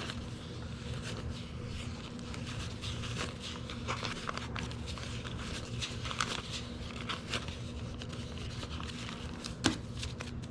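Paper banknotes being handled and counted: soft, irregular rustling and crinkling of bills, over a steady low hum.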